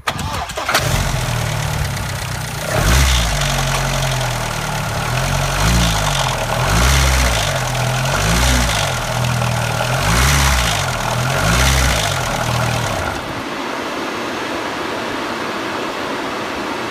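B6 2.0 L stroker four-cylinder engine, newly built with about 30 miles on it, started and blipped repeatedly, its revs rising and falling about every one and a half seconds. The revving stops about thirteen seconds in, leaving a steady hiss. The engine has ticked since its first start-up; the cause is not yet known.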